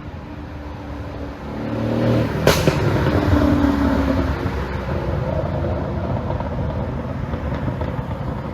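Mercedes-AMG S63's 5.5-litre twin-turbo V8 revving up about two seconds in, with one sharp exhaust pop at the peak, then running on steadily. The pop is the product of an ECU pop-and-crackle tune.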